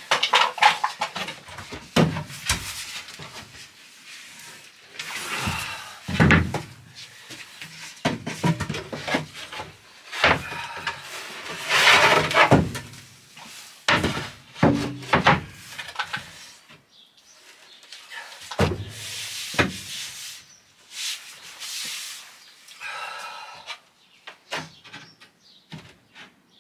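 Plywood floor boards being lifted, slid and set down on a van's floor: irregular wooden knocks and thumps with scraping as the boards rub against each other.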